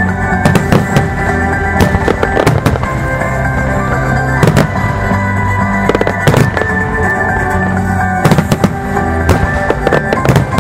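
Starmine fireworks barrage: many shells bursting in quick, irregular succession, with loud cracks and booms over steady background music.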